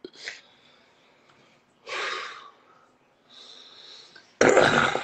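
A man laughing hard with almost no voice: breathy, wheezing gasps in separate bursts, ending with a loud, harsh burst near the end.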